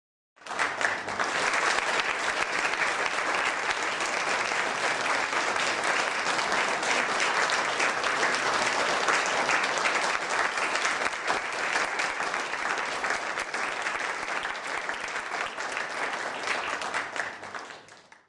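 A large crowd applauding with dense, steady clapping. It starts abruptly about half a second in and fades out near the end.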